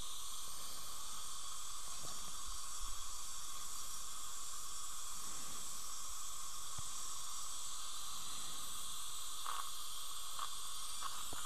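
Steady hiss of dental suction running, with a brief soft rustle about three seconds in.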